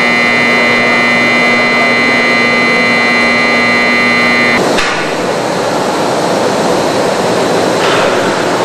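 Industrial machinery running in a large hangar: a steady high whine over a low hum, with a rushing noise beneath. The whine and hum stop abruptly about halfway through, leaving only the broad rushing noise.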